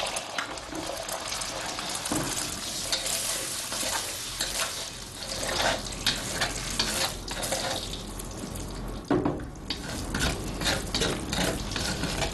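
Beaten eggs sizzling in hot oil in a wok while a metal ladle pushes and breaks them up, with irregular scrapes and clinks of the ladle against the wok.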